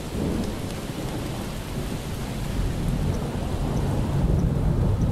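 Steady rain with a low rumble of thunder, the rumble swelling slightly near the end.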